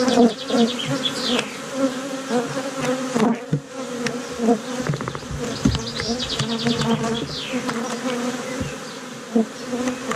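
Honey bees from an opened hive buzzing in a steady drone close by. Short clicks and light knocks come through now and then as wooden frames are handled.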